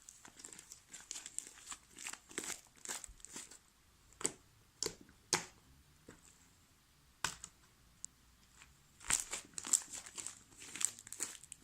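Homemade fluffy slime of glue and shaving cream being kneaded and stretched by hand, giving off irregular sticky crackles and pops; the slime is still a little sticky. The pops come in scattered clusters, sparser in the middle and busier near the end.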